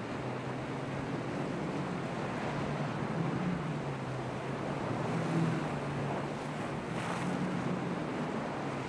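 A boat's engine drone, a low hum that wavers slightly in pitch, over a steady wash of surf and wind noise on the microphone. A brief swell of hiss comes near the end.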